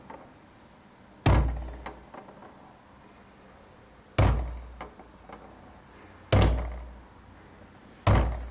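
Car fuel tank struck lightly four times, about every two seconds; each blow gives a hollow thud with a low boom dying away, followed by a few faint knocks from inside the tank, likened to a ball swinging. This is the knock the owner long mistook for a suspension fault.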